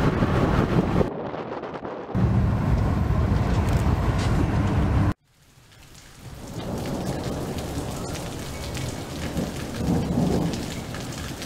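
Thunderstorm audio: steady rain with rumbling thunder. It breaks off suddenly about five seconds in, then fades back in and carries on with low rolls of thunder.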